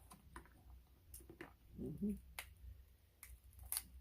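Close-up eating sounds: scattered sharp clicks and small snaps of crab shell being cracked and picked, with soft chewing, the loudest cracks about two and a half seconds in and near the end.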